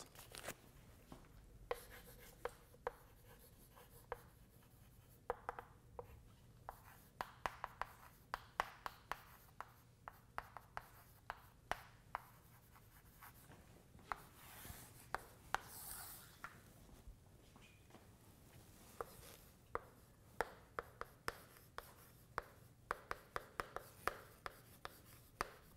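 Chalk writing on a blackboard: faint, irregular sharp taps as the chalk strikes the board, mixed with short scratchy strokes.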